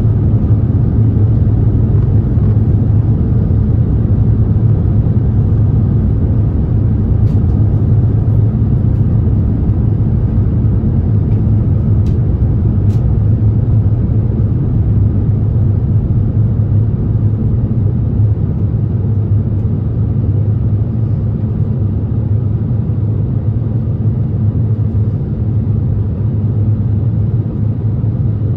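Steady low cabin rumble inside an Airbus A350-900 in flight on approach, the airflow and engine noise heard at a window seat. Two faint ticks come about halfway through.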